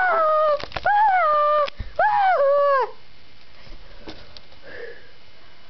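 A person screaming in long, high-pitched cries that fall in pitch, three of them in the first three seconds; then it goes quiet.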